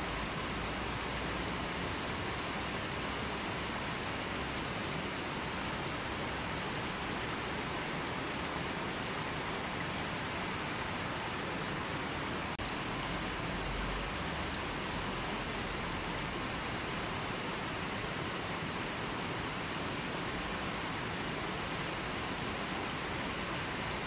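Shallow river rushing over and around boulders: a steady, even rush of water.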